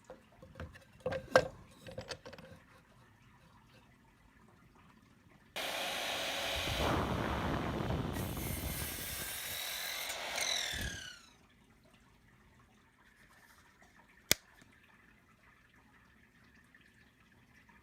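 Einhell Power X-Change 18 V cordless miter saw: a few handling clicks, then the saw starts with a sudden rush, runs for about five seconds and spins down with a falling whine. A single sharp click follows a few seconds later.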